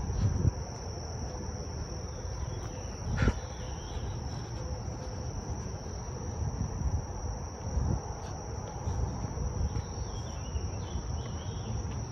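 Insects singing outdoors in a steady, unbroken high-pitched drone, over a low rumble, with one sharp click about three seconds in.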